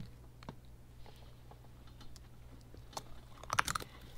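Light, scattered clicks and taps from a metal rod and pliers working a slug out of a ballistic gel block, with a quick run of louder clicks about three and a half seconds in.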